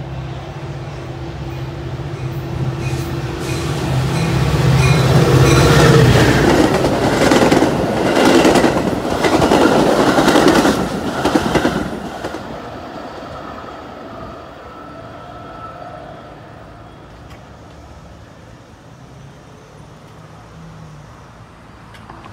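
Metra diesel commuter train approaching and running past the platform. It grows louder to a peak from about six to eleven seconds in, with wheels clattering over the rail joints and some squeal, then falls away.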